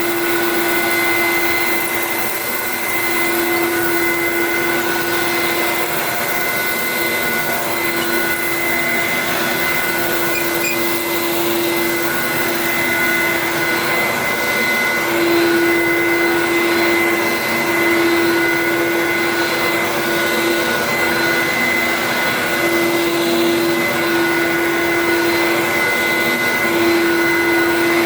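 Dyson DC01 bagless cyclone upright vacuum cleaner running steadily at a constant pitch while vacuuming sand out of a carpet.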